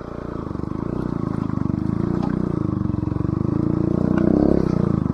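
Bajaj Pulsar NS200's single-cylinder engine running through an aftermarket Akrapovic exhaust, a fast even beat that swells about four seconds in and eases back near the end.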